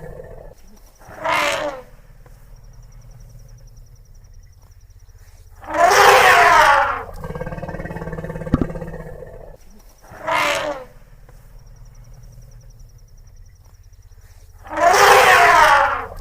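Elephant sound effect: loud, breathy blasts from the animal, a short one followed by a longer, louder one, with a low rumbling growl between them. The sequence repeats twice, as in a loop.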